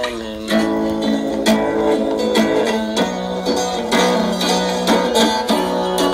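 Instrumental passage of a Turkish song on saz and guitar, plucked notes over a held low note, played back through a small repaired Jwin speaker.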